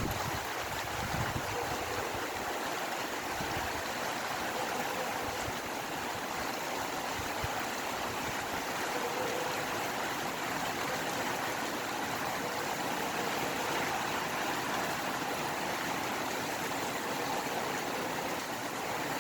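Steady rain falling, a continuous even hiss that holds the same level throughout.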